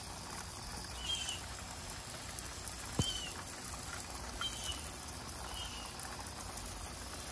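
Spray of water from a garden hose pattering onto the soil of a seed-starting cell tray and the wooden deck around it, a steady hiss. One sharp tap about three seconds in, and a few short bird chirps over it.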